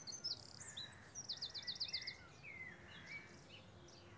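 Songbirds chirping, with a quick run of about eight high notes a little after a second in, over a faint background hiss.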